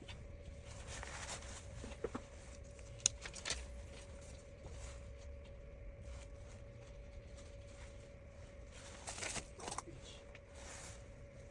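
Faint handling sounds: a few light clicks and rustles of small parts being handled, with a scattered cluster about nine seconds in, over a faint steady hum.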